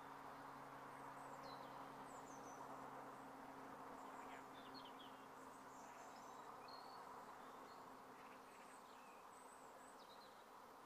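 Near silence: faint outdoor ambience with a low, steady hum that fades away near the end, and a few faint high chirps.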